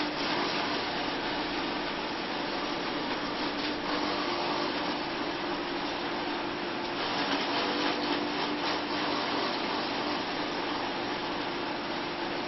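Straw pellet production line running: XGJ560 pellet mill, belt conveyor and centrifugal blower giving a steady rushing machine noise with a constant low hum.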